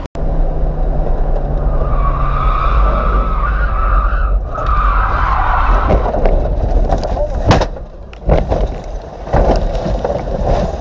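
Car tyres skidding with a steady squeal for a few seconds as the car runs off the road, then several hard thumps and crashes as it bounces over rough ground.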